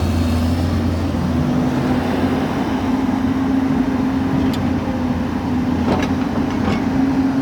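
Excavator's diesel engine running steadily, with a few faint clicks and knocks over it.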